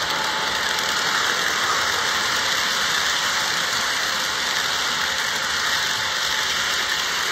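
Model train running past close by, its cars rolling over the layout track: a steady rushing noise of wheels on rail.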